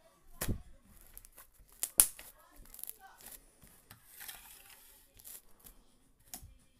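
Slime being handled by hand: sharp clicks or pops, the loudest about two seconds in, among fainter crackling and rustling.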